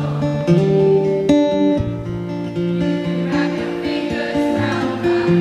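Amplified acoustic guitar played live, a slow passage of picked chords ringing and changing every second or so between sung lines of the song.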